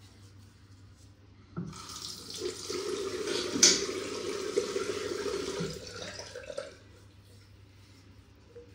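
Bathroom sink tap turned on about a second and a half in, water running into the basin for about five seconds, then shut off. A single sharp knock or splash is the loudest moment, partway through.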